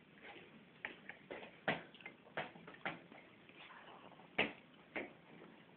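A series of light, sharp taps and clicks at an irregular pace, about eight in all, with the loudest a little over three quarters of the way through.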